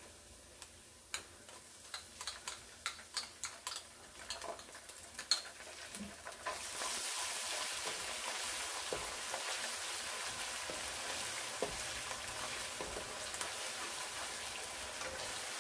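Light clicks and taps for a few seconds, then about six seconds in a sudden loud sizzle as ginger-garlic paste meets hot oil and browned onions in a pot, going on steadily while it is stirred with a spatula.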